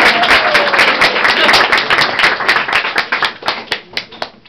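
Audience applauding, the dense clapping thinning to a few scattered claps near the end.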